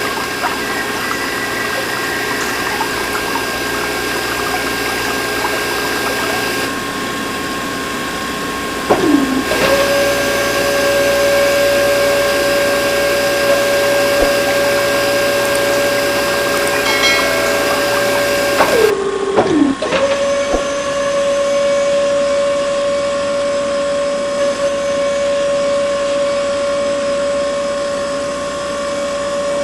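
Small battery-powered DC motors of a cardboard model machine running with a steady whine over a constant whirring hiss. The whine drops in pitch briefly, as a motor slows, about nine seconds in and again about nineteen seconds in.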